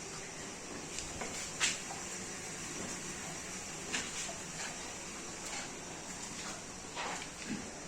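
Steady background hiss with a few scattered knocks and clicks, the sharpest about a second and a half in and another about four seconds in.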